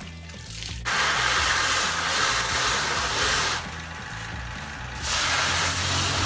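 Water spray hissing against a silkscreen printing frame as it is rinsed out, starting about a second in, easing off for a moment past the middle, then coming back.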